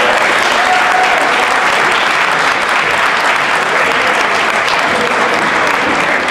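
Audience applauding: many people clapping steadily in a dense round.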